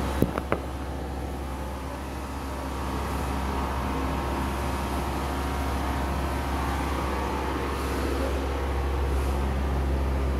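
Steady low mechanical hum with two short clicks just after the start.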